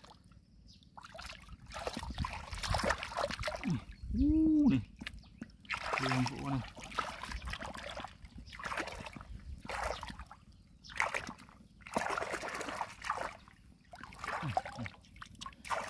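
Shallow water splashing and sloshing in repeated bouts of a second or two as someone works through it. A short voiced call rises and falls about four seconds in, and another comes around six seconds.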